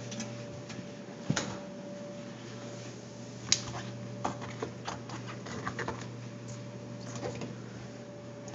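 Scattered clicks and knocks of a hand working inside a front-loading washer's drum and along its rubber door seal, the sharpest about three and a half seconds in and a run of lighter ones after, over a steady low hum.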